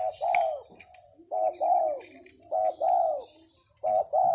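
Spotted dove (derkuku) cooing: four coos about a second and a half apart, each a quick double note followed by a longer note that rises and falls.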